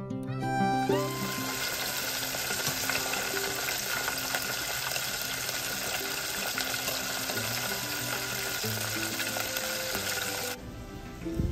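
Flour-coated chicken pieces deep-frying in hot oil in a deep fryer basket: a steady, loud sizzle and crackle that starts about a second in and cuts off suddenly shortly before the end, with soft music underneath.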